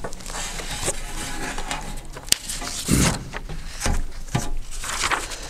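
Sheets of paper rustling and shuffling as they are handled at a lectern, with a sharp tap a little over two seconds in.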